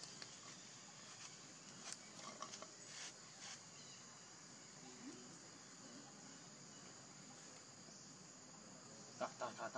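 Faint, steady high-pitched insect chorus, with a few faint scattered clicks and, near the end, a quick run of short sharp chirps.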